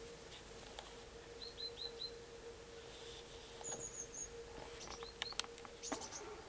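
Small songbird calls: four short falling notes about one and a half seconds in, then a brief, very high, thin series. Near the end comes a quick flurry of small splashes and clicks as a common redstart wades into a shallow pool to bathe. A steady faint hum runs underneath.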